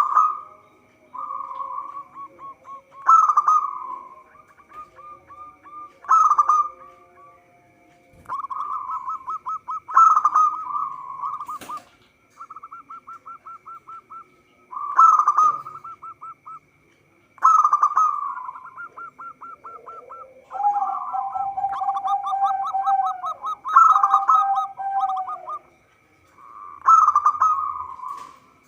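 Zebra doves cooing: repeated rapid, staccato cooing phrases, each opening on a loud accented note, every two to three seconds. About two-thirds through, a second, lower line of coos overlaps for a few seconds.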